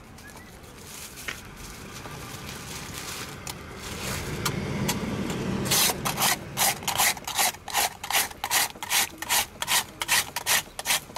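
A hand-held metal ice shaver scraped back and forth over a block of ice, shaving ice for a raspado: a rhythmic rasping of about three strokes a second that starts about halfway in. Before it, quieter rustling of a plastic bag being opened.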